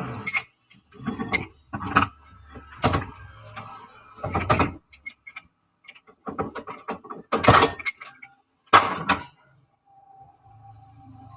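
Irregular metal knocks and clanks from workshop tools and parts being handled, about eight sharp hits spread over several seconds. Near the end a faint low hum with a steady tone sets in.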